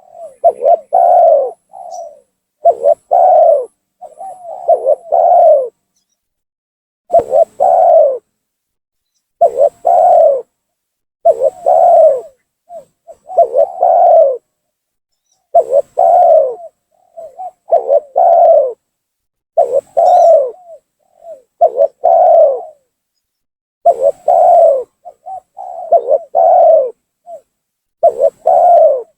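Spotted dove (tekukur) cooing over and over in its territorial song, a phrase of a few short coos roughly every two seconds. This is the gacor lure call meant to provoke a rival dove and draw it down.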